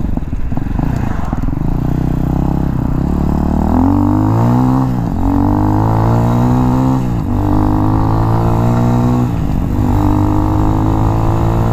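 RPS Hawk 250 dual-sport's single-cylinder four-stroke engine accelerating through the gears. The engine note climbs in pitch, drops at three upshifts a couple of seconds apart from about halfway through, then climbs again.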